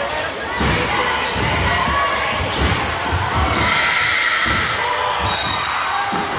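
Basketball dribbled on a hardwood gym floor, a run of bounces echoing in the hall over crowd voices, followed a little over five seconds in by a short blast of a referee's whistle calling a foul.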